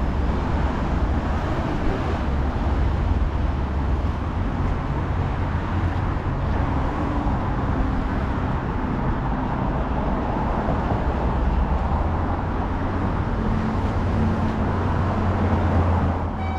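City street traffic: cars passing on a road, with a steady low rumble of road noise.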